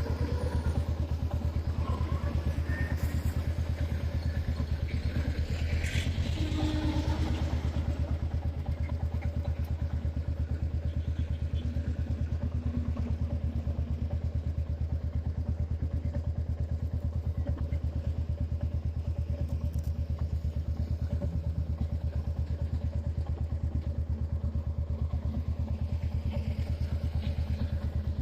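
Royal Enfield Classic 350's single-cylinder 349 cc air-and-oil-cooled engine idling steadily through a Shark aftermarket exhaust, a deep, even, fast thump with no revving.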